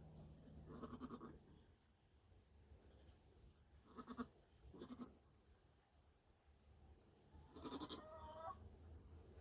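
Nigerian Dwarf goat bleating quietly in four short calls, the last one longer, near the end.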